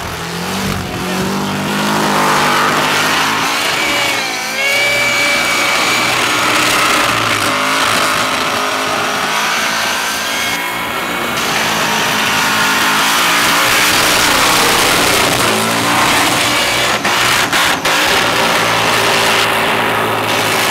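Supercharged burnout car engine held at high revs while the rear tyres spin and screech against the pavement, the revs rising and falling. Near the end the engine note breaks up in a series of rapid cuts and pops.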